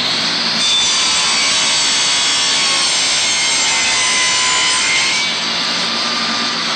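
Shopsmith table saw with a hollow-ground planer blade running at speed and crosscutting a wooden board. The sound eases slightly about five seconds in.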